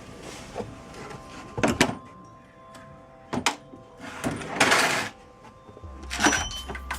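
Metal hand tools clinking and clattering: a few sharp clanks and a longer rattling scrape about four to five seconds in. A low hum starts near the end.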